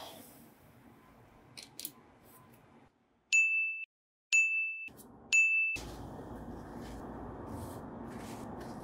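Three identical high electronic beeps about a second apart, each lasting about half a second, after a few faint clicks. Then a steady low humming noise sets in.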